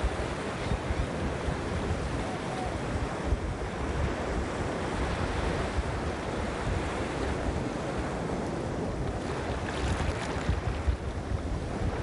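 Ocean surf breaking and washing over sand around shore rocks, a steady rush with wind gusting on the microphone. A wash of water hisses up a little brighter about ten seconds in.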